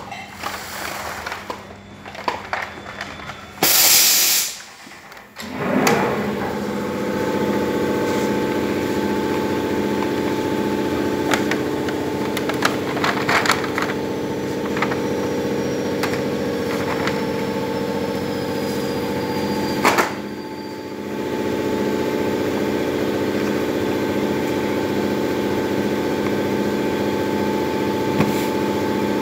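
Pneumatic blister-packing machine: a short, loud hiss of released air about four seconds in, then a steady machine hum of several tones that dips briefly about twenty seconds in, with scattered clicks and knocks.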